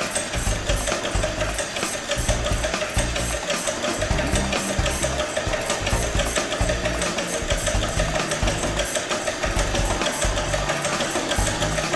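Background music with a stepping bass line, over a steady, fast mechanical rattle.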